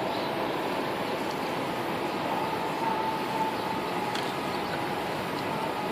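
Steady outdoor city noise, a constant hiss with a faint drawn-out high tone that fades in and out.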